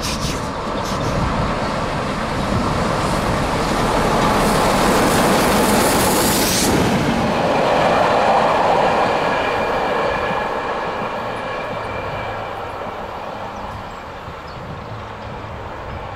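Steam locomotive 140C27 and its train of coaches running past on the rails, with clickety-clack from the wheels. The rumble builds to its loudest about six seconds in as the train passes beneath, then fades as the coaches move away.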